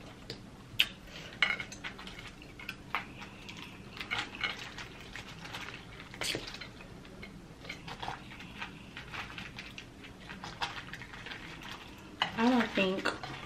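Hands picking through a bowl piled with boiled crawfish: scattered clicks and crackles of the hard shells knocking against each other and the bowl, with a few sharper clicks about a second in and midway.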